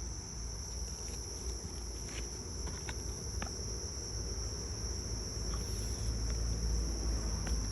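Faint light clicks and rustles of packaging being handled inside a box, a few scattered ones, over a steady high-pitched background tone.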